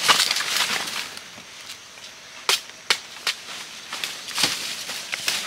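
Large banana leaves and forest undergrowth rustling as they are handled and pushed through, with a few sharp cracks near the middle.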